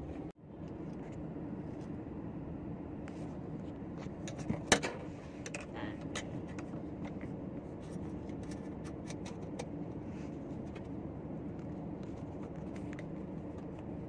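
A steady low hum throughout, with one sharp click about five seconds in and light scattered clicking and tapping after it.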